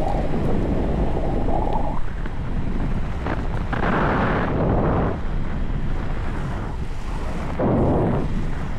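Wind buffeting the camera microphone at skating speed, over the rumble of inline skate wheels rolling on rough, cracked asphalt. The noise swells in three surges, near the start, around the middle and near the end.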